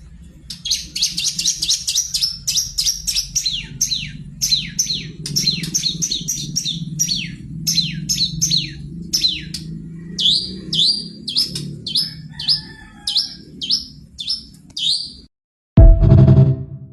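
Long-tailed shrike (pentet) singing vigorously: a fast run of sharp, downward-sweeping chirps, several a second, over a low steady hum, stopping about fifteen seconds in. Near the end comes a brief, loud, low buzzing burst.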